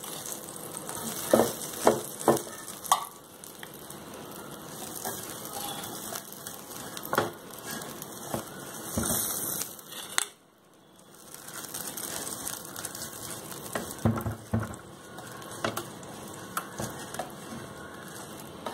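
Melted butter sizzling faintly as a brush spreads it over the hot plates of an electric waffle/sandwich maker, with scattered clicks and taps of the brush and a spoon against the plates and a steel bowl. There is a brief quiet dip a little past halfway.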